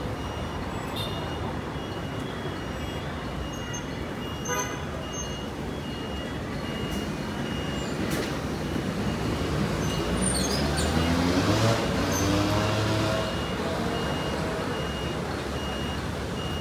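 Bus station traffic noise with large diesel engines running. About nine seconds in, a bus engine rises in pitch and grows louder as it accelerates, then levels off. A faint high beep repeats steadily throughout.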